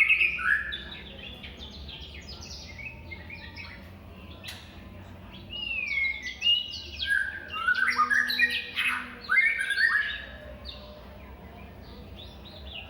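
White-rumped shama (murai batu) singing a relaxed, varied song of clear whistles, rising and falling glides and quick chirps. The phrases are loud and busy at the start and again from about the middle to two thirds of the way in, and softer in between.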